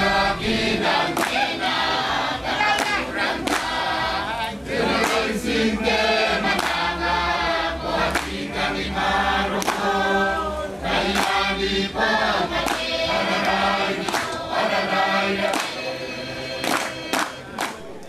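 Choral music: a group of voices singing together in flowing melodic lines, with sharp percussive hits throughout; it grows quieter near the end.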